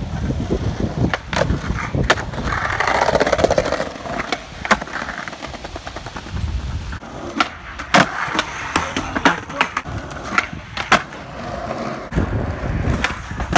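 Skateboard wheels rolling over pavers and concrete with a steady low rumble, broken by sharp clacks of the board popping and landing, about eight times.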